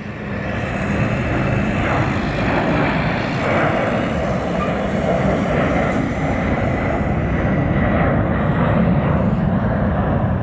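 Boeing 747-400 jet engines at takeoff power as the airliner climbs out overhead. The deep rumbling noise builds over the first second, then stays loud and steady.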